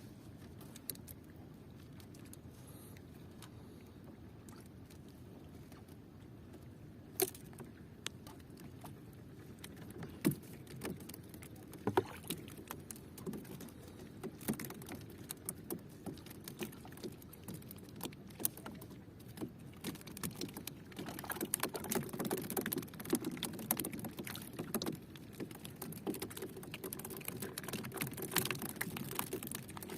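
Scattered knocks and taps over a steady low rumble, growing denser and busier over the second half.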